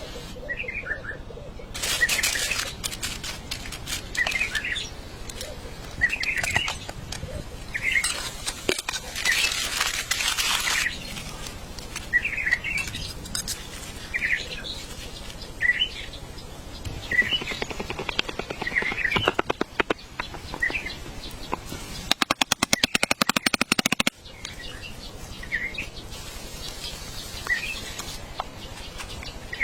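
A bird chirping over and over, a short call about every two seconds, over a steady hiss. Past the two-thirds mark a rapid rattle runs for about two seconds.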